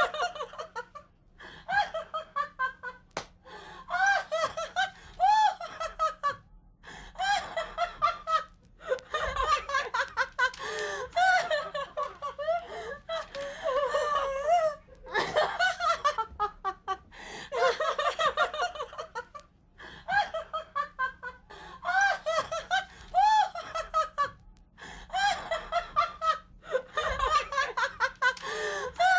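Hearty laughter in repeated bouts of quick, pitched pulses, broken by short pauses every few seconds.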